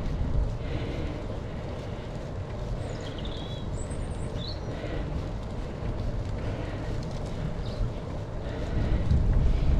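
Riding noise from a moving bicycle: a steady low rumble of wind and tyre noise, louder near the end. A few short high chirps come about three to four and a half seconds in.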